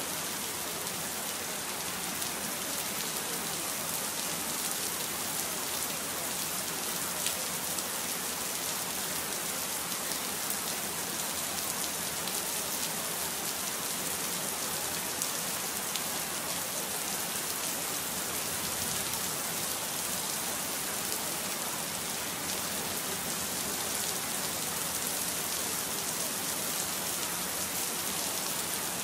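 Steady rain sound: an even, continuous hiss with faint scattered drop ticks.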